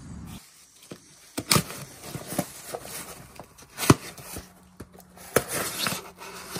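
Cardboard box being handled and its packing tape slit open with a knife blade: scattered knocks, scrapes and rustles, the loudest a sharp knock just before four seconds in.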